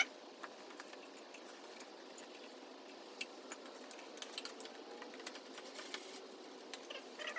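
Faint, scattered light clicks and rattles of hand work on a motorcycle's plastic fairing panel and its screws, against a low steady background hiss.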